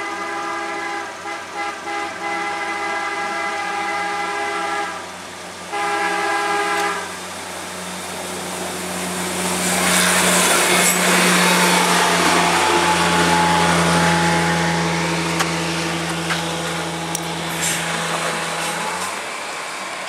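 CSX maintenance-of-way rail vehicle's horn sounding a chord of several notes in long blasts, broken by a few quick stutters, stopping about five seconds in, then one more blast. The vehicle then passes close by: its engine drone under a swelling rush of wheel-on-rail noise that peaks near the middle and fades, with a few sharp clicks, the engine note cutting off near the end.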